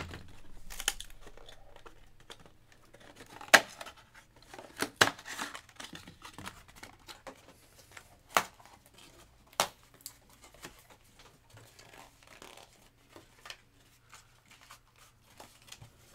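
A trading-card box and its wrapping handled on a table: crinkling and rustling with scattered sharp clicks and taps, the loudest about three and a half and five seconds in, fading to faint ticks near the end.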